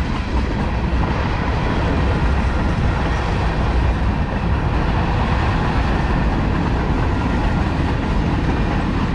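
Freight train passing: tank cars, a covered hopper and a flatcar rolling by with a steady rumble of steel wheels on the rails.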